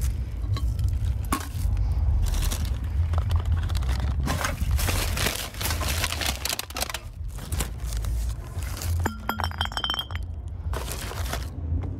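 Empty cans and bottles clinking and rustling in a paper bag as they are gathered up from the pavement. About nine seconds in, a dropped one hits the ground with a short ringing clink. A steady low rumble runs underneath.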